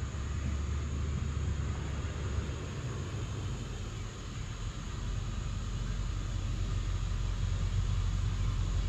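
Steady low rumble under an even hiss of outdoor background noise, with no distinct events.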